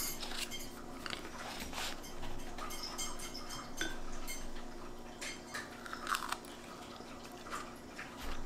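Quiet handling of a paperback book, with soft rustles of the pages as fingers touch and turn them and scattered light clicks and taps, over a faint steady hum.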